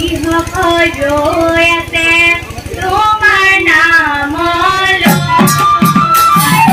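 A group of women and girls singing an Assamese dihanam, a devotional chant, in one flowing melodic line. About five seconds in, drum beats and clashing hand cymbals come in.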